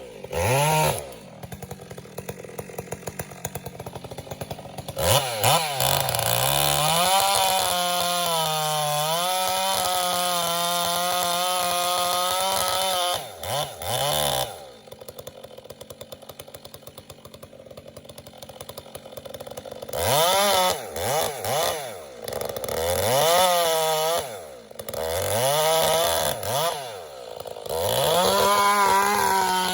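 Two-stroke chainsaw blipped up and down again and again, held at high revs for several seconds and dropping back to idle for a stretch in between.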